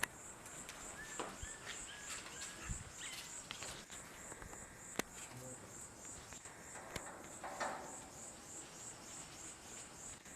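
An insect chirping in a high, steady pulse, about four chirps a second, with a few scattered clicks and knocks over it.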